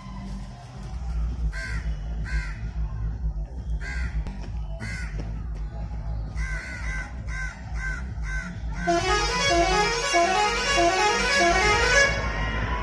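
A tourist bus's engine rumbles as it pulls slowly down a driveway, while crows caw several times. About nine seconds in, the bus's musical horn plays a quick, repeating multi-note tune for about three seconds.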